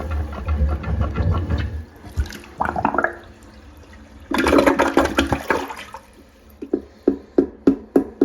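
Plunger working a clogged toilet: water sloshing and gurgling in the bowl, with a heavy low churning at first and a loud rush of water about four seconds in. A run of sharp knocks comes near the end.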